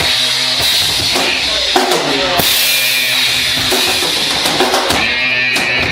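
A band playing a song live, loud and steady, driven by a full drum kit: regular kick and snare hits with a cymbal wash about halfway through, over held notes from the other instruments.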